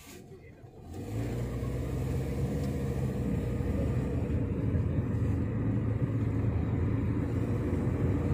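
Toyota Corolla's engine and road noise heard from inside the cabin while driving, a steady low hum that comes in about a second in.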